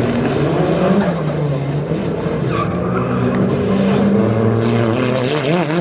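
Lancia Delta integrale's turbocharged four-cylinder engine revving up and down under hard throttle while drifting, with the tyres skidding. Near the end the engine pitch wavers quickly as the revs bounce.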